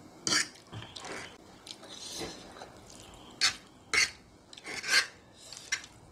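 A fork scraping and clinking against a plate while gathering up noodles, in a string of short, sharp strokes.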